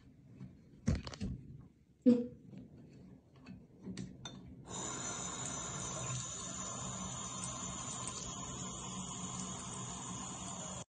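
A few knocks and thumps on a bathroom sink, the loudest about two seconds in. Then, a little before halfway, a faucet comes on and runs steadily into the sink basin.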